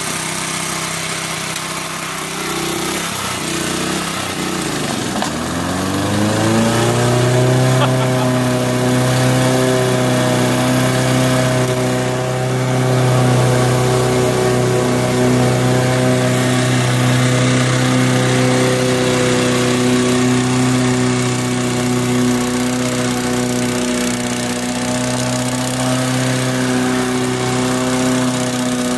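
Small lawn mower engine on a homemade mower bike, running. Its pitch wavers for the first few seconds, then settles into a steady, even run about six seconds in.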